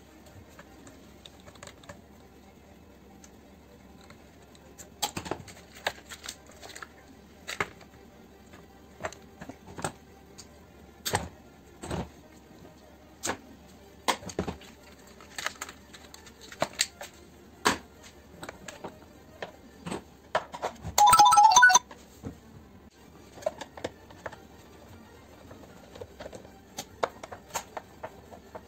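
Scattered clicks, taps and knocks of a screwdriver and plastic and metal parts being handled while an electric pressure washer is taken apart. About three quarters of the way through comes a brief, loud high-pitched sound lasting about a second.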